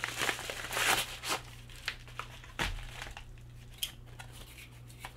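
A paper mailer envelope being opened by hand: crinkling and rustling, busiest in the first second and a half, then a single low thump about two and a half seconds in, followed by lighter scattered rustles and ticks.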